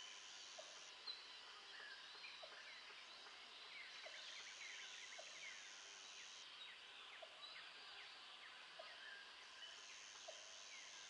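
Faint forest ambience of many birds chirping and calling over one another, with a high steady buzz that comes in for a couple of seconds about every five seconds.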